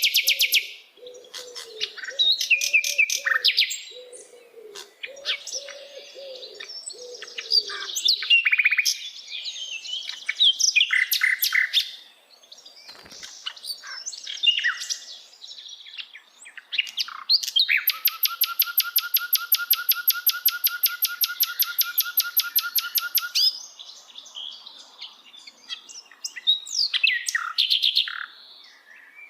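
Sikatan londo singing a varied song of quick high chirps and short trills, with lower warbling notes beneath in the first third. In the second half comes one rapid, even trill lasting about five seconds.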